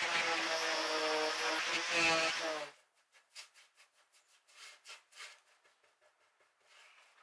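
Bosch detail sander running with a steady motor hum, which cuts off abruptly about two and a half seconds in. Faint light taps and rubbing follow.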